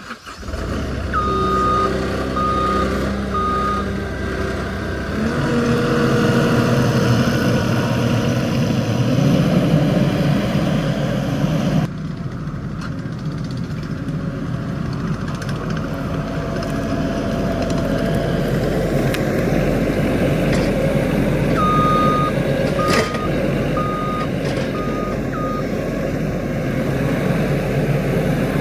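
Skid steer loader's engine running and working under load, with its reversing alarm beeping in two short runs: a few beeps just after the start and again about three quarters of the way through.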